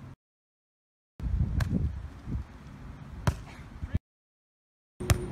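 Volleyball being struck by players' forearms and hands on a sand court: three sharp smacks, about a second and a half apart, over a low rumble. The sound drops to dead silence twice between them.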